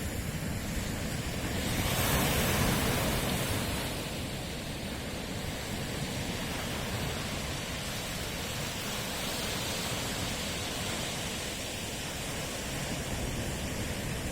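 Sea surf washing on a shore: a steady rush of waves, with one wave swelling louder about two seconds in and then falling back.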